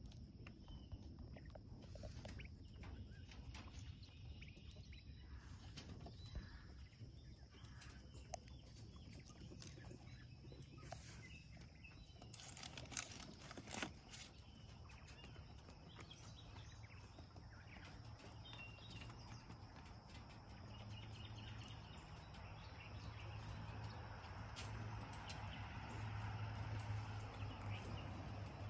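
Faint outdoor ambience with a few small bird chirps and scattered clicks. A low hum swells near the end.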